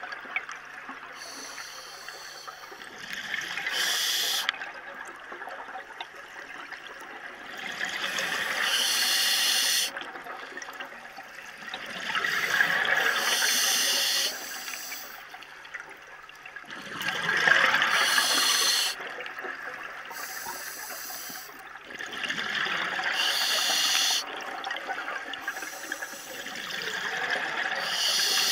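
Scuba diver breathing through a regulator underwater: regular breaths, each a hiss followed by a rush of exhaled bubbles, about every four to five seconds.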